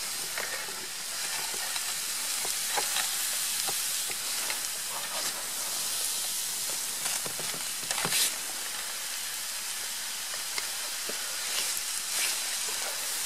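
Strips of beef and sliced peppers and onions sizzling over campfire coals in a frying pan and a hinged sandwich-toaster grill: a steady hiss with scattered small pops and crackles, and a louder click about eight seconds in.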